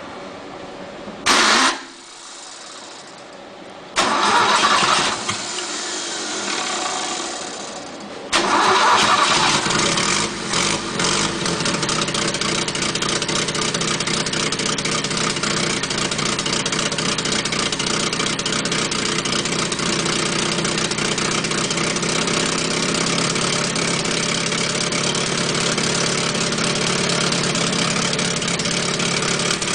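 Renault 1.6-litre V6 turbo-hybrid Formula 1 engine of the 2018 McLaren being fired up. There is a short burst about a second and a half in, a louder spell from about four seconds that sags again, then from about eight seconds it catches and runs steadily and loud, with a couple of brief dips around ten seconds.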